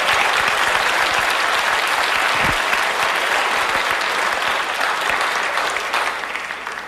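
Studio audience applauding steadily, dying away a little near the end.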